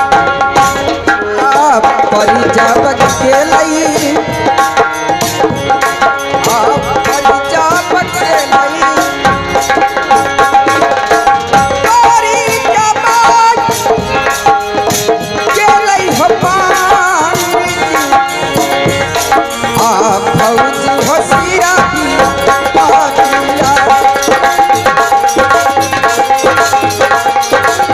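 Indian folk music for a naach performance: rapid hand-drum playing under a wavering melody, over a steady held drone note.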